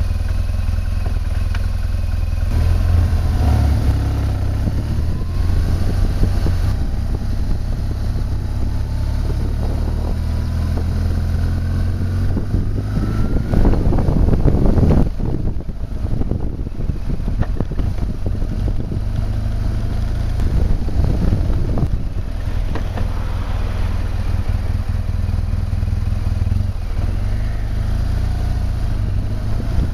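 BMW R1200 GS flat-twin motorcycle engine running on the move, recorded by a camera mounted on the bike, with a heavy low rumble of wind on the microphone. The engine note rises as the bike accelerates, loudest about fourteen seconds in, then drops suddenly and settles back to a steady run.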